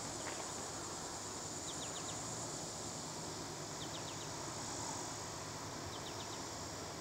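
Summer insects buzzing in a steady high drone, with a repeated call of three or four quick falling chirps about every two seconds.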